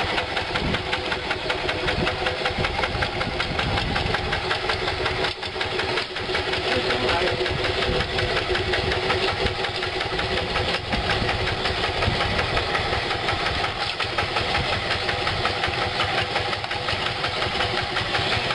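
Yanmar two-wheel hand tractor's single-cylinder diesel engine running steadily, its firing pulses coming as a rapid even beat.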